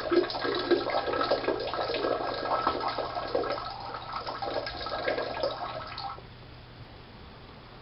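Toilet flushing: a loud rush of water that drops away suddenly about six seconds in to a faint steady hiss.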